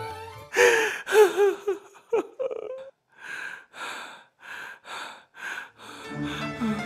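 A person gasping with strained, wavering vocal sounds, then about five quick, heavy panting breaths.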